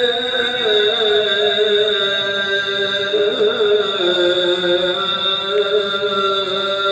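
A muezzin's sung call to prayer (adhan): one long melismatic line on 'ḥayya ʿalā', held without a break, with ornamental turns, and gradually stepping down in pitch.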